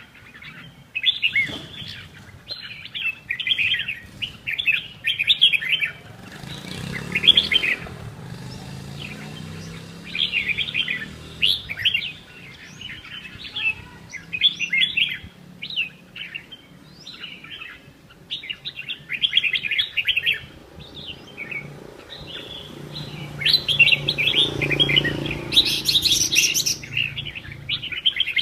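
Small birds chirping in rapid, busy bursts, many short calls overlapping. A low rumble swells and fades twice beneath them, about a quarter of the way in and again near the end.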